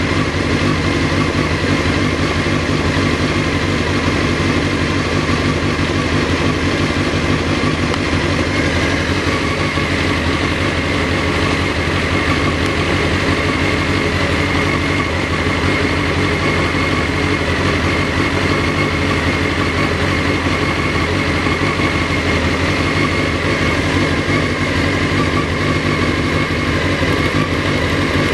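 1991 Honda CBR600F's 600 cc inline-four engine idling steadily.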